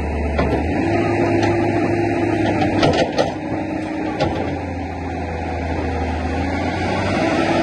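Tata Hitachi crawler excavators running, the diesel engine note steady with a pitched whine that shifts now and then. Several sharp metal clanks come in the first half, loudest around three seconds in.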